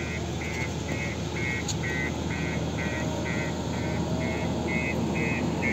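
JCB backhoe loader's reversing alarm beeping about twice a second over the steady running of its diesel engine, the warning that the machine is backing up.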